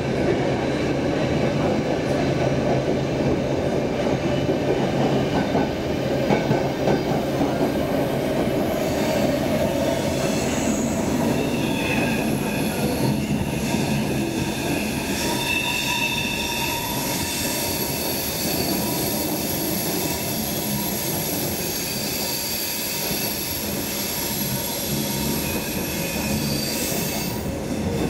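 Stockholm Metro C6 subway car running, heard from inside the car: a steady wheel-on-rail rumble. From about a third of the way in, thin high metal squealing tones join it, and they stop shortly before the end.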